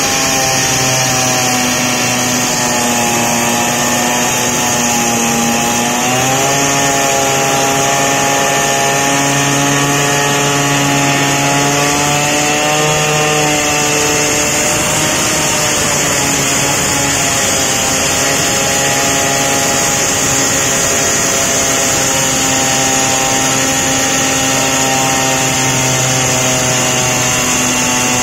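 Handheld petrol cut-off saw with a diamond blade running hard while cutting into a concrete wall, with a steady high hiss over the engine. The engine note sags and recovers a few times, about six seconds in and again around thirteen seconds, as the blade bites into the concrete.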